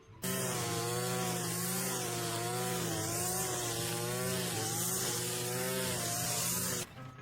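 A power saw running and cutting, its pitch wavering up and down under load. It cuts in just after the start and stops abruptly near the end.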